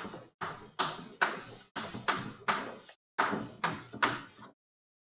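Chalk tapping and scraping against a blackboard as words are written: a quick run of short, sharp strokes that pauses briefly about three seconds in and stops shortly before the end.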